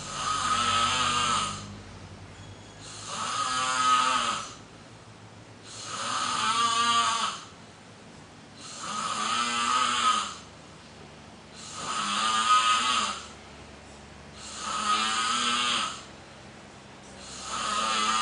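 Snoring of someone asleep: a long snore about every three seconds, seven in all, with quieter breathing between.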